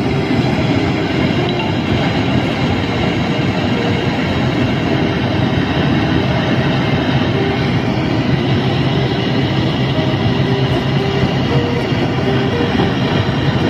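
Engine and propeller of a small high-wing propeller plane droning in flight, heard from inside the cabin: a loud, steady noise with a low hum under it.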